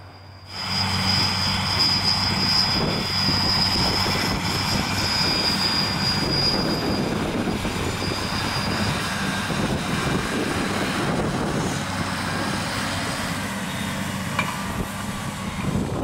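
Fendt Vario tractor and Bergmann TSW 3140 manure spreader at work, spreading manure. The engine runs steadily under load over the noise of the spreader. A high whine sets in abruptly about half a second in and fades out after six or seven seconds.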